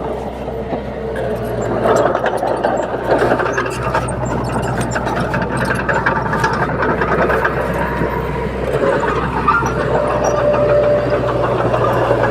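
Komatsu D21P bulldozer's diesel engine running steadily, with many scattered clanks and rattles over the hum.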